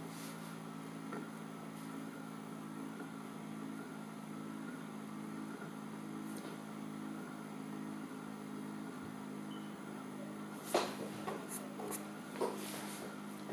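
Small precision spinning top whirring on a magnetic drive base: a steady hum with a fainter high whine above it, and a few sharp clicks near the end.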